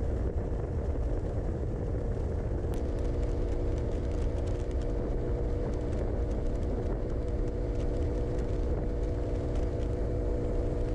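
Motorcycle cruising at steady speed on the open road in a dust storm: a steady engine hum under heavy wind buffeting on the microphone.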